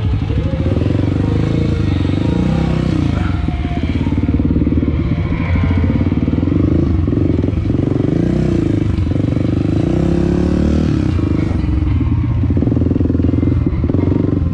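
Honda CRF250F's single-cylinder four-stroke engine running at low speed as the bike rolls slowly along, its revs rising and falling with small throttle changes.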